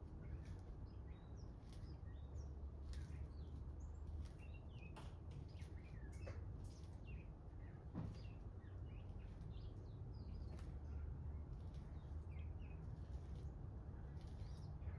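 2016 Amana heat pump running with a steady low hum in heat mode, while small birds chirp over it again and again. A few faint clicks come through.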